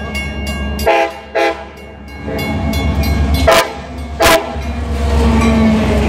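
Nathan K5LA five-chime air horn on a Metra MP36PH-3C diesel locomotive sounding two short blasts about a second in, then two quick toots a couple of seconds later. After that the locomotive's engine and wheels grow loud as it passes close by.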